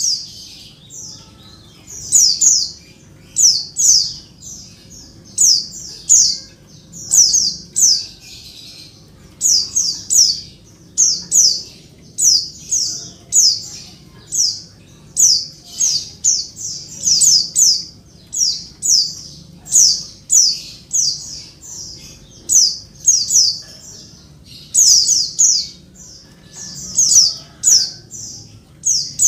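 Female white-eye (pleci) calling noisily, as if calling for a male: short, high, slightly falling notes in quick groups of two to four, repeated about every second.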